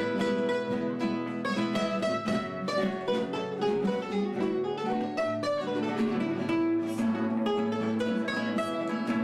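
Several nylon-string classical guitars playing chords together in a steady strummed rhythm, with single notes moving over it.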